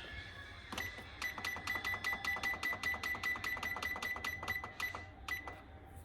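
A fast, even run of sharp clicks, about five a second, each with a short ringing tone. It starts about a second in and stops about five seconds in.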